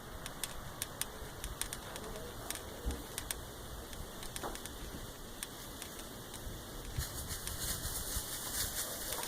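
Scattered light clicks and taps over a steady hiss, with a stretch of louder high hiss near the end.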